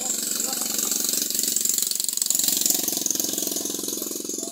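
Liquid pouring and splashing into a plastic basin full of liquid, a steady hiss. An engine runs alongside and grows louder about two seconds in.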